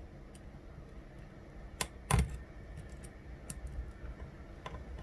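Scattered light metallic clicks of a lock pick probing and setting the pins of an ASSA 600 euro cylinder during single pin picking, the loudest about two seconds in.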